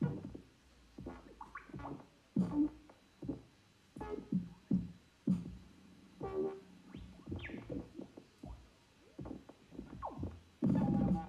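Experimental modular-synthesizer music, degraded by Zoom's audio processing on a weak connection: scattered short bleeps, chirps and clicks with uneven gaps, a short pitch glide about seven seconds in, and a dense loud burst near the end.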